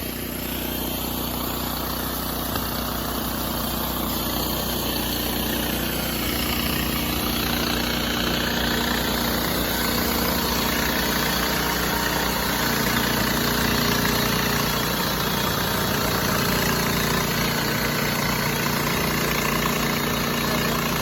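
Sawmill engine running steadily as the mill saws through a log.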